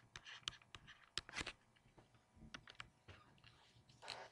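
Faint, irregular clicking and light tapping at a computer as the handwritten notes page is scrolled to a blank area.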